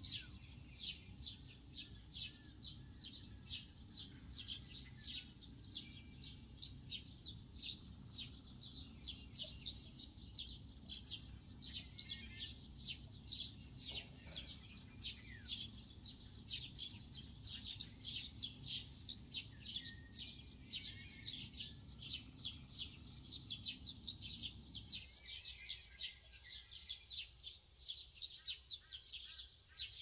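Bird chirping over and over, short high chirps about three a second, with a low steady rumble underneath that stops about 25 seconds in.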